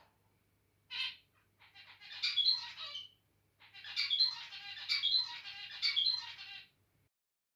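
Male zebra finch singing: a single short call about a second in, then two phrases of fast, buzzy, chattering song, the second longer, with the same motif repeated several times. The song stops about a second before the end.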